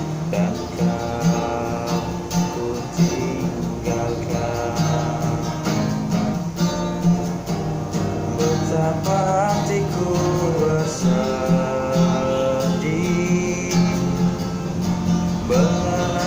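Acoustic guitar strummed in a steady rhythm as an instrumental passage of a song, with a held melody line over it.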